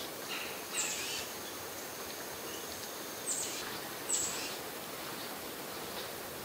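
A bird calling three times, short raspy calls that each start high and drop, over a steady outdoor background hiss.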